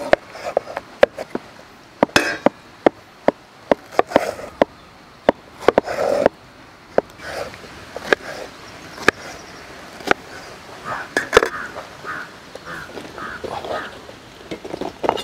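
Large kitchen knife cutting through peeled pineapple and knocking on a wooden cutting board: a run of sharp, irregularly spaced chops, with the soft crunch of the fruit between them.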